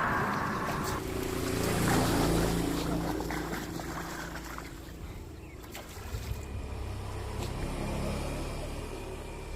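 A low motor hum that swells about two seconds in, eases, and rises again near the end.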